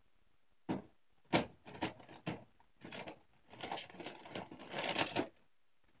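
Hands rummaging through and handling plastic and silicone fidget toys: a run of irregular clicks and rustles that starts just under a second in and stops about five seconds in.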